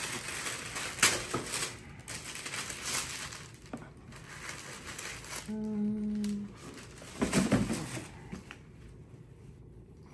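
Gift packaging being torn open and crumpled by hand, with irregular crackling rustles. A short hummed "mm" about five and a half seconds in, and the rustling stops about two seconds before the end.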